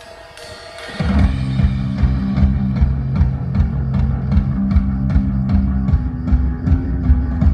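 Rock band playing through a large outdoor PA system during a soundcheck. After a short swell, the full band comes in loud about a second in, with electric guitar, bass and a steady drum beat.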